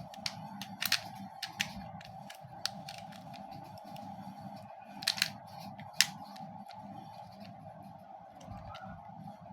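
Plastic Beyblade top and launcher being handled and pushed together, giving scattered sharp clicks and knocks, the loudest pair about five and six seconds in, as the stiff parts resist fitting. A steady hum runs underneath.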